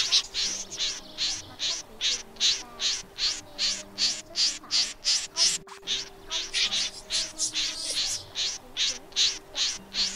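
Common snipe lure-call track: short high calls repeated in an even rhythm, about three a second, without a break.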